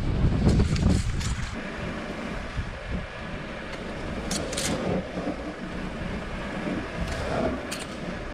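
Subaru XV driving slowly through long grass, heard from a camera mounted low on the car: wind buffets the microphone, heaviest in the first second or so, over a steady rushing. Grass stalks swish against the car in a few short crackles.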